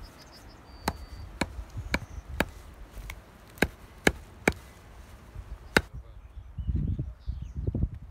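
Hatchet chopping through a bundle of pine seedling roots onto a wooden stump: about ten sharp strikes, roughly half a second apart. The strikes stop about six seconds in, and a low rumble follows.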